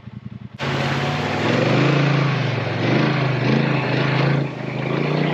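Polaris Sportsman XP 1000 ATV's twin-cylinder engine running at low speed in a shallow rocky creek, its pitch rising and falling, under the loud steady rush of creek water and a small waterfall. The water noise starts suddenly about half a second in, after a quieter stretch of engine alone.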